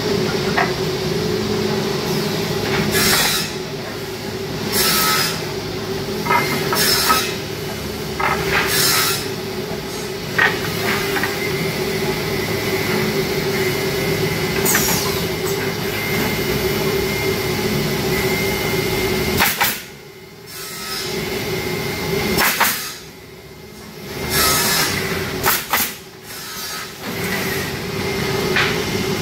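Automatic wood pallet nailing machine working: a steady hum broken by a string of short hissing bursts and knocks as its nail guns fire. The sound drops away briefly twice past the middle.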